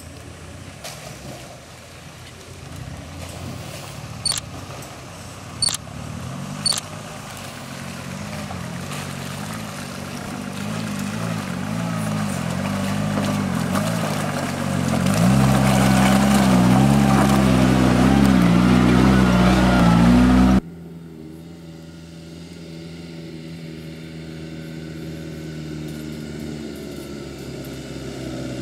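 Suzuki Samurai off-road 4x4 engine running under load on a steep, muddy climb, its pitch rising and falling with the throttle and growing louder as it nears. The engine sound cuts off abruptly about two-thirds in and gives way to another 4x4's engine running more quietly. Three sharp clicks come in the first quarter.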